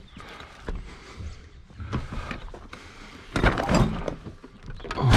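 Knocks, clunks and rattles of things being handled, with a louder cluster about three and a half seconds in.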